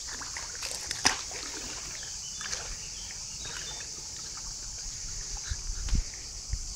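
Swimming-pool water sloshing and lightly splashing around a person's legs as he wades in, with one sharp knock about a second in.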